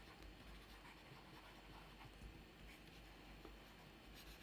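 Near silence, with faint scratching and a few light taps of a stylus on a pen tablet as words are handwritten.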